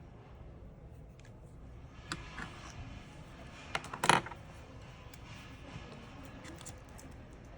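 Small clicks and taps of tools on phone parts during reassembly, scattered and light, with one sharper, louder click about four seconds in.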